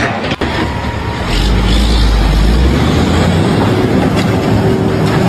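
Loud, steady rumble of a heavy vehicle, with a deep low rumble building about a second in.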